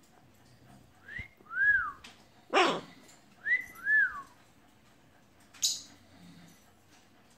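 Blue-and-gold macaw whistling a two-note whistle, a quick rising note then an arching one, given twice. Between the two comes a single loud, harsh, bark-like call, and a brief high scratchy sound follows near the end.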